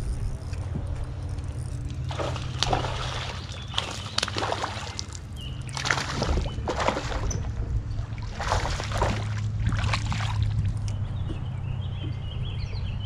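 Boat motor running with a steady low hum while water sloshes and slaps against the hull in a series of separate splashes.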